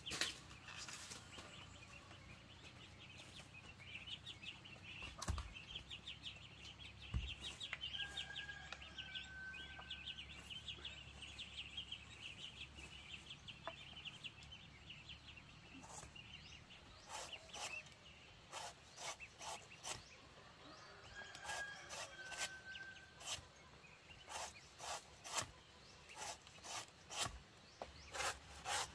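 Birds or fowl calling faintly: a fast chattering trill and a short two-note call that comes twice. In the last ten seconds there is a series of sharp clicks or snaps about once a second.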